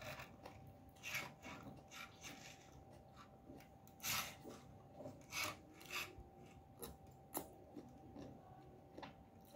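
Faint, scattered eating sounds: wooden chopsticks clicking and scraping in a ceramic soup bowl, with a few short slurps as noodles are drawn in.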